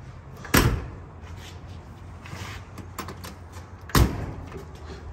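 A 1968 Ford Mustang convertible's door: two sudden clunks, one about half a second in and one near four seconds, the second as the outside door handle is worked.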